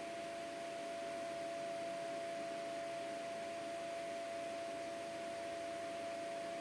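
A steady humming tone with an even hiss beneath it, unchanging throughout: background room tone.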